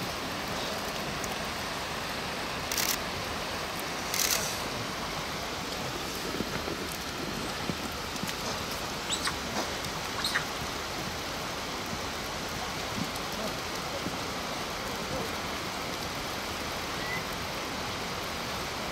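Steady rushing outdoor noise, with two brief knocks a few seconds in and a few faint short chirps around the middle.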